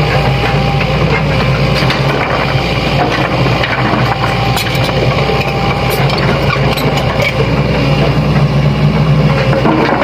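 Sany hydraulic excavator's diesel engine running steadily, with a few faint light clicks over the engine.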